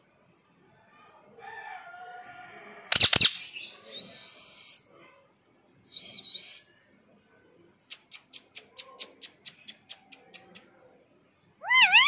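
Ringneck parrot calling in short bouts: a low voice-like chatter, then loud shrill screeches about three seconds in, a high whistle, another short squawk, and near the end a rapid run of about a dozen clicking chirps, roughly five a second.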